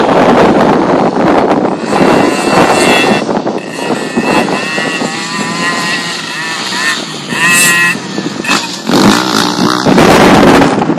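Small dirt bike's engine revving up and falling back as it rides, its pitch rising and dropping. Heavy wind noise on the microphone covers it at the start and again near the end.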